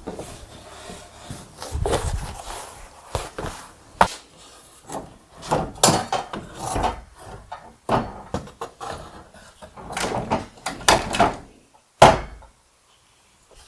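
Irregular clunks, knocks and scraping rubs of objects being handled and set down, with one loud knock about twelve seconds in.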